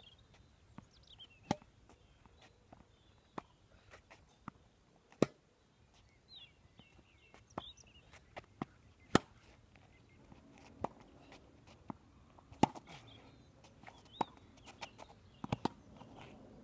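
Tennis ball knocked back and forth in a rally: sharp racket strikes and ball bounces on a hard court, one every one to two seconds, with a few small birds chirping.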